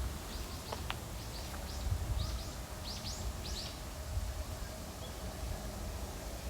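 A bird calling in a quick run of about a dozen short, high chirps, often in pairs, growing stronger and stopping about four seconds in, over a steady low rumble.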